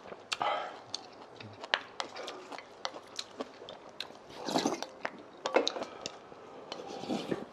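Two people eating fast from bowls: spoons and chopsticks clicking and scraping against the dishes, with chewing.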